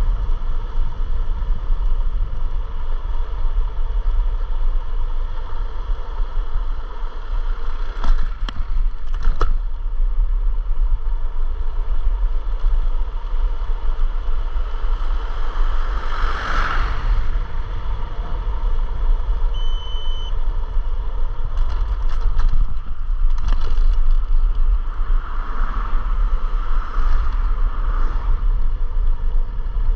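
Wind buffeting and road rumble on a chest-mounted action camera's microphone while riding an electric scooter, steady and loud. A few sharp knocks come about eight seconds in and again after twenty seconds, and a short high beep sounds about twenty seconds in.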